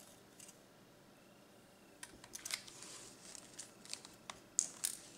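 Faint, irregular light clicks of small beads being picked up and strung onto thin beading wire. The clicks start about two seconds in, after a quiet stretch.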